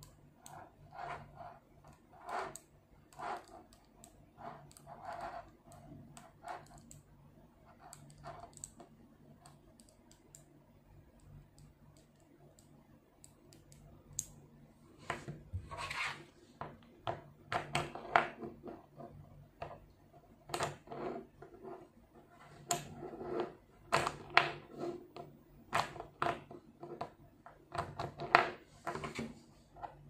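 Small 5 mm neodymium magnetic balls clicking and snapping together as they are handled, in irregular runs of sharp clicks. The clicks thin out to a lull about halfway through, then come thicker and faster.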